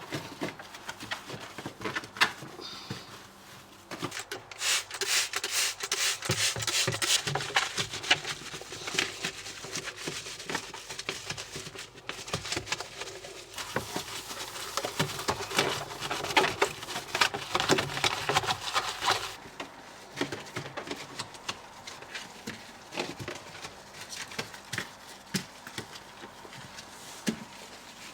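Hand scrubbing and wiping with a cleaning cloth, a dense run of scratchy rubbing strokes and small knocks of handling a removed fridge part, strongest from about four seconds in and thinning out after about twenty seconds.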